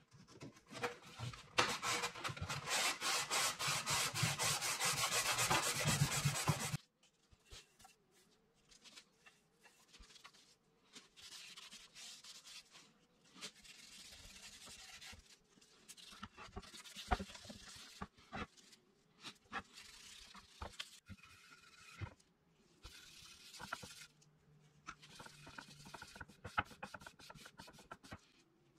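Hand sanding of a wooden drawer box's dovetailed corner: fast back-and-forth strokes that stop abruptly about seven seconds in. After that, quieter on-and-off rubbing as a gloved hand wipes finish onto the wood.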